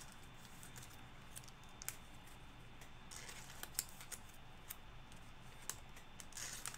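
Trading cards being handled and set out, making faint scattered clicks and light ticks, one sharper click near the middle.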